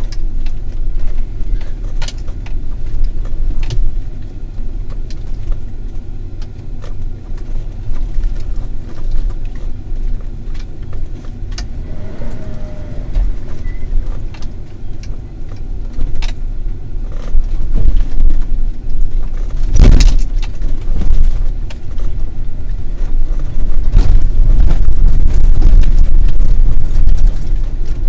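Off-road vehicle driving over a rough dirt track: a steady low engine and tyre rumble with frequent knocks and rattles as it jolts over bumps, one hard jolt about two-thirds of the way through, and the rumble growing louder near the end.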